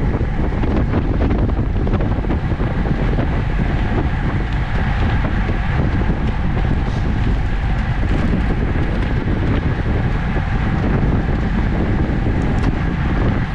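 Steady wind rushing over a bike-mounted action camera's microphone while a road bike rides at about 24 mph.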